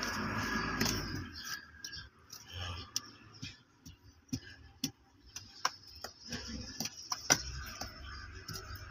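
A small metal hand tool scraping and digging in soil around a buried PVC water pipe, making sparse, irregular sharp clicks and light scrapes.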